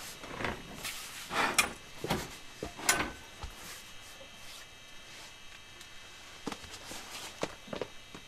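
A series of knocks and clicks over the first three seconds as the tent trailer's frame is pushed up into place, the clicks being the sign that it has locked, then a few faint ticks near the end.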